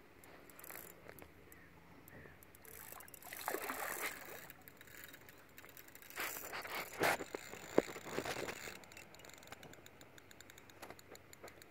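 Water splashing and swirling as a hooked sturgeon rolls near the surface, in uneven surges, with a sharp click about eight seconds in and faint fast ticking near the end.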